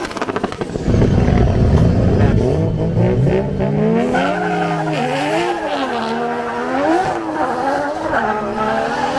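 Drift car's engine at high revs, its pitch swinging up and down again and again, with tyres skidding on the track. A heavy low rumble comes about a second in.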